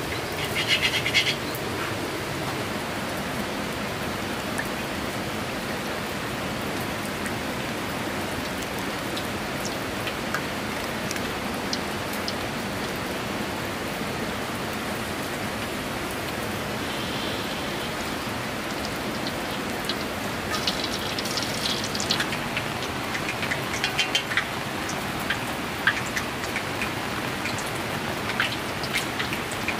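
Steady rain falling, with scattered sharp taps and a few brief high chirping sounds.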